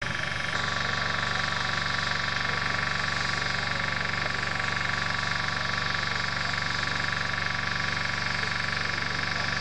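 Helicopter running on the ground, its turbine and rotor giving a steady whine with a fast, even low beat that does not change.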